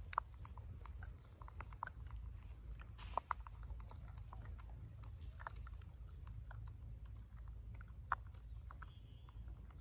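Baby rhesus macaque picking food from a person's palm and eating it: faint, scattered small clicks and crackles, with a few sharper ones, over a low steady rumble.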